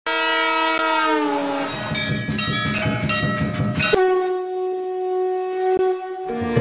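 Train horn sounding a blast that drops in pitch as the train passes, followed by the clatter of rail wheels, then a second, steady horn blast. Sitar music comes in at the very end.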